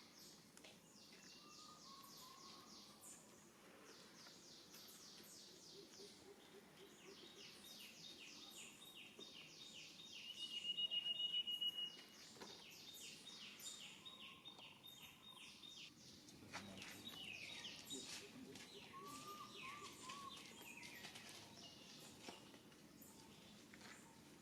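Faint outdoor ambience of birds calling, with repeated rapid high-pitched chirping trills. About ten seconds in, a louder high whistling trill lasts about two seconds.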